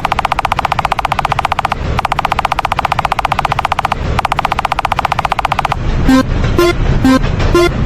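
A rapid rattle like machine-gun fire, in three runs of about two seconds with short breaks between them. Near the end it gives way to a horn-like toot repeating about twice a second.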